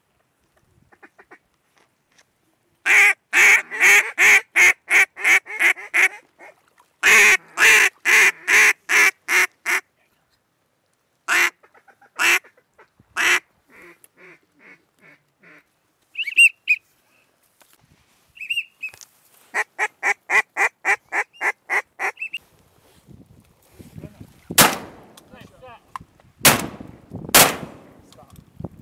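A hand-blown mallard duck call: two long runs of loud, rapid quacks, then shorter, softer runs and a couple of brief higher notes. Near the end come three shotgun shots, the last two about a second apart.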